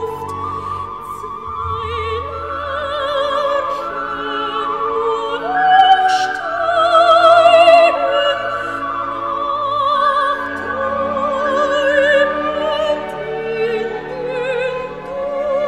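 Background classical music: a slow melody of long held notes with wide vibrato, in an operatic style.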